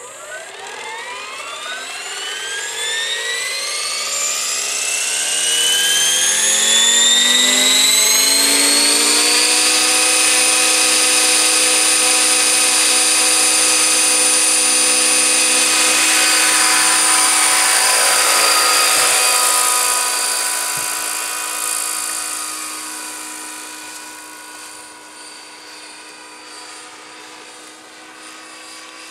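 Radio-controlled T-Rex 600 helicopter in a Bell LongRanger scale body spooling up from rest: its whine climbs steadily in pitch for about ten seconds, then holds at a steady head speed. After about twenty seconds the sound fades as the helicopter lifts off and flies away.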